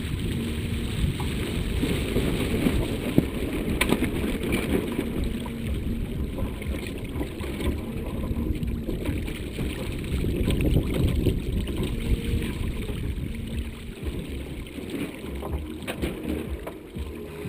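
Wind buffeting the microphone and water rushing along the hull of a small sailing yacht under way. There are a couple of brief sharp clicks, about four seconds in and near the end.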